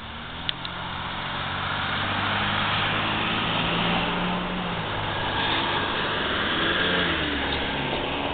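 A motor vehicle's engine and tyres on the road, getting louder over the first couple of seconds and then holding steady as it goes by.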